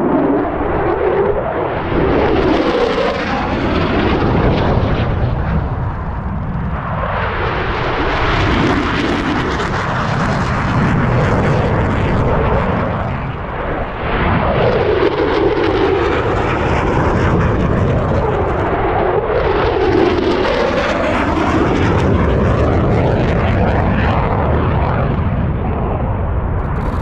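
Military jet flying low through a valley, its engine noise loud and sustained, swelling and sweeping up and down in pitch several times as it passes and echoes off the hills.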